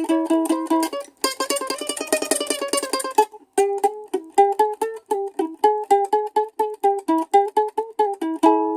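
Small ukulele being played: quickly picked notes, then a burst of rapid tremolo strumming about a second in, then single picked notes at about four a second.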